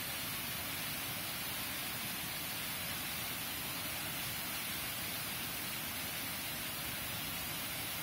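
Waterfall: water cascading over rock ledges into a pool, a steady, hissy rush that doesn't change.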